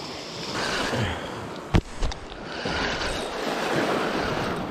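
Small waves washing in over seaweed-covered rocks, surging twice, with wind on the microphone. A sharp knock about two seconds in, with a smaller one just after.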